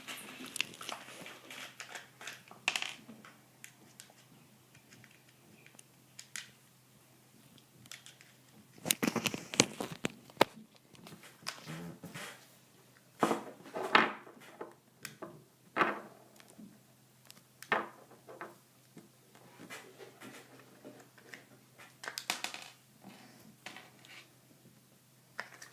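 Irregular clicks, taps and plastic clatter of hands and tools taking apart a Traxxas Slash 2WD RC truck to get at the spur and pinion gears, loudest about nine and fourteen seconds in.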